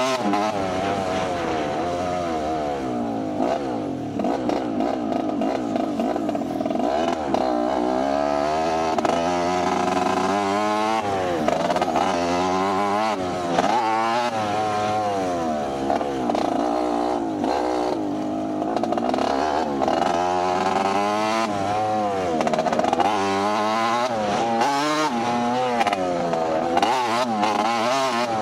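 Motocross bike engine revving hard and easing off again and again, its pitch climbing and dropping every second or two as the throttle is worked.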